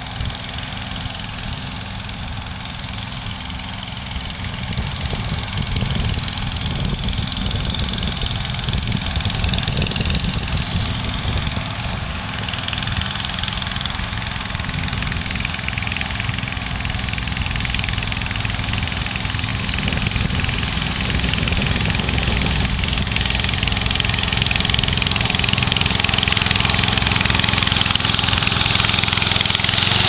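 Evatech Hybrid 22T remote-controlled tracked slope mower running and cutting grass, its small petrol engine holding a steady speed and growing steadily louder as the mower comes closer.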